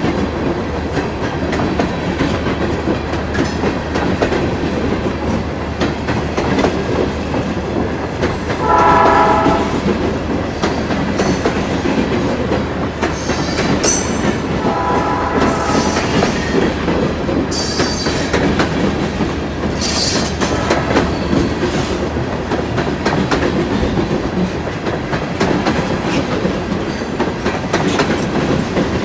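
Freight train of empty cars rolling past close by: a steady rumble of wheels clacking over the rail joints. Two short blasts of the train horn from the locomotives up ahead sound over it, about nine and fifteen seconds in.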